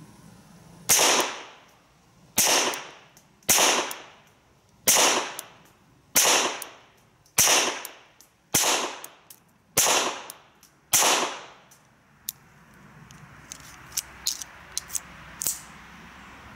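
FN 1922 pistol fired one-handed, nine shots at a slow, even pace of about one every second and a quarter, each followed by a short echo. A few faint clicks come after the last shot.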